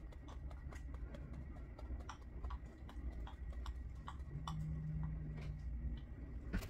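Light, irregular clicks, about three or four a second: typing on a computer keyboard, over a steady low room hum.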